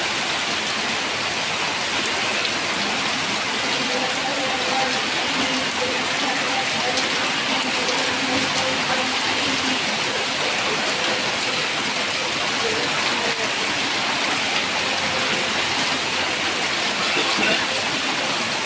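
Heavy rain pouring onto a paved street, a dense, steady hiss of water with no let-up.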